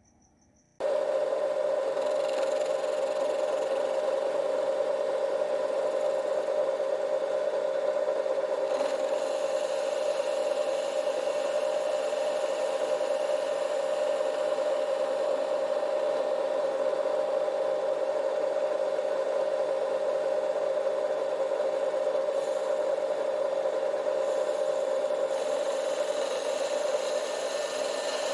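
Metal lathe running steadily with a constant gear whine, turning the stock for a jacking screw. It starts abruptly about a second in.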